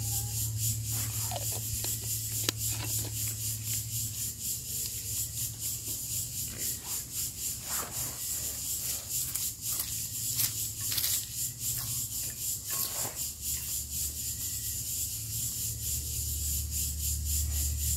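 Intermittent rubbing and scraping sounds over a steady, evenly pulsing high-pitched insect drone.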